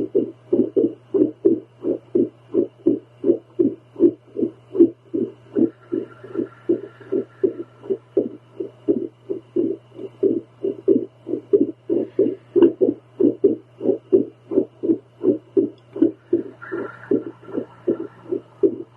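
A woman's heartbeat picked up by a handheld home Doppler: a continuous run of pulses, about two to three a second, over a steady low hum.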